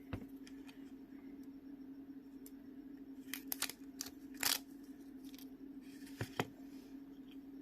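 A few light, sharp clicks and taps of a small plastic phone and hand tools being handled, over a steady low hum.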